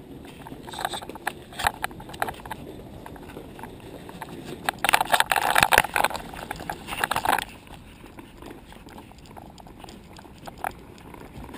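Footsteps on a hard tile floor, with clothing and a bag rustling against a carried camera. A louder stretch of rubbing and knocking lasts about two and a half seconds midway.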